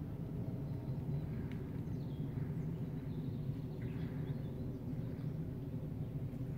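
Steady low outdoor rumble with a few faint, short bird chirps scattered through it.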